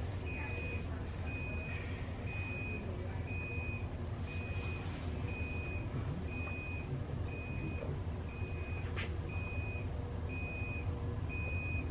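Hospital equipment alarm beeping: one high tone repeating about once a second, over a steady low hum, with a single sharp click about nine seconds in.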